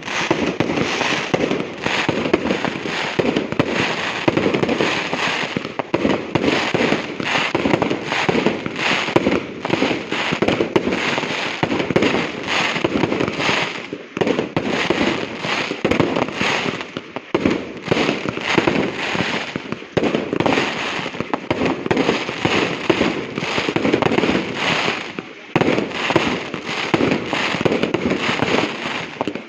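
Castillo fireworks display going off: many bangs and crackles a second from shells and firecrackers, unbroken.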